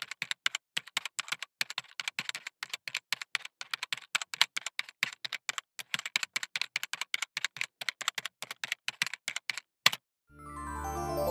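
Rapid, uneven clicking, like typing on a keyboard, that stops just before ten seconds in. Music then fades in and grows louder near the end.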